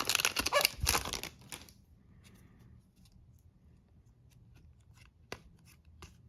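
Foil trading-card pack wrapper crinkling and crackling for about two seconds. After that come faint soft ticks of cards being slid and flipped by hand, with one sharper click about five seconds in.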